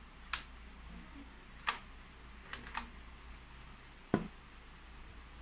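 Sharp plastic clicks from a LEGO-brick M416 toy rifle being worked by hand: a click about half a second in, another just under two seconds in, a quick double click, then the loudest, a clack with a dull knock about four seconds in as the charging bolt is pulled.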